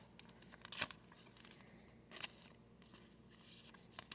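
Faint rustles and crinkles of trading cards and thin plastic being handled, as in sliding a card into a plastic sleeve or opening a foil pack. They come as three short crinkles, about a second and a half apart, with a soft brushing hiss between the last two.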